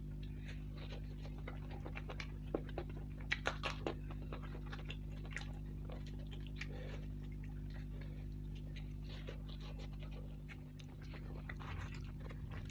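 Close-miked eating sounds: chewing and wet mouth clicks while fried luchi flatbread is torn by hand and dipped in curry, with a bunch of sharper clicks about two to four seconds in. A steady low hum runs underneath.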